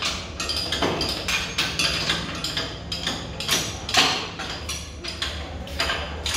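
Hand tools knocking and clinking on metal, irregularly a few times a second, as the engine and transmission halves of a John Deere tractor are joined together, over a steady low hum.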